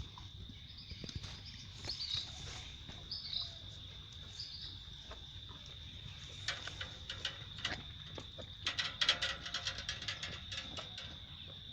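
Crickets or similar insects keeping up a steady high trill, with a few short chirps in the first few seconds. From about six seconds in comes a run of quick sharp clicks, busiest around nine seconds.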